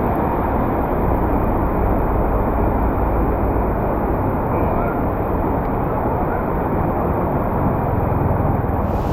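Steady, dull rushing noise of a heavy downpour in a flooded street, with no distinct separate events.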